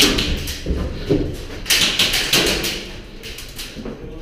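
Sharp knocks and thumps echoing inside a metal shipping-container corridor. A loud one comes at the start, and a cluster follows about a second and a half later.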